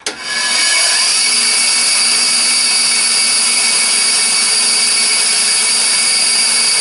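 Band saw switched on: the motor and blade come up to speed within about a second, then run steadily and loudly with a high hiss and a low hum, the blade running free through a new zero-clearance insert with nothing being cut.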